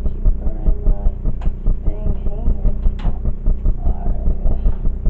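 Bass-heavy background music with a fast steady beat, and a voice singing or humming over it in short phrases.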